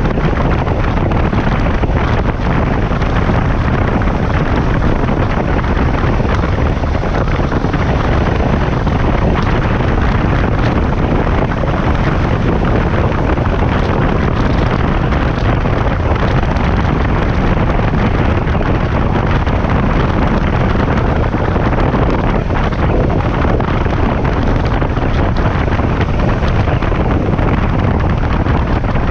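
Steady rush of wind buffeting the microphone of a camera on a moving motorcycle, with the KTM 1190 Adventure's V-twin engine and tyre noise running underneath at a constant riding speed.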